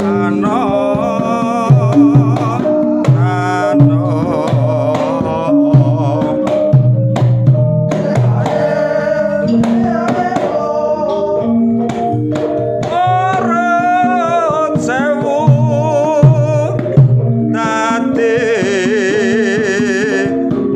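Javanese gamelan music in Kebumen style: a large kendang barrel drum played by hand, with repeated deep strokes and sharp slaps, over held gamelan tones. A voice sings a wavering melody with it.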